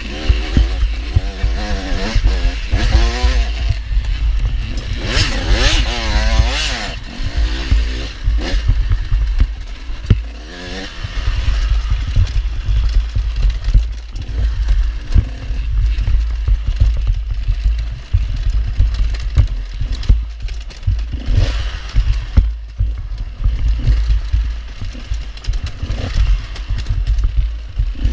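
Super Mini motocross bikes racing: engines revving up and down, with several quick rises and falls in pitch about two to seven seconds in, over a heavy low rumble.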